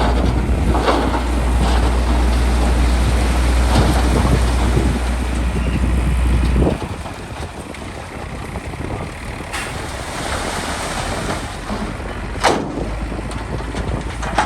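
Heavy diesel construction machinery running with a deep, steady engine drone and a noisy rumble. The deep drone cuts away about seven seconds in, leaving a lighter hiss with a few sharp knocks.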